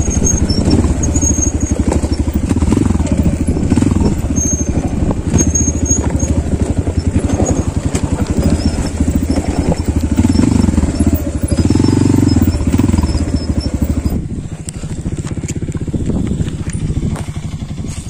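Trail motorcycle engine running under way, its note rising and falling with the throttle. It eases off about four seconds before the end.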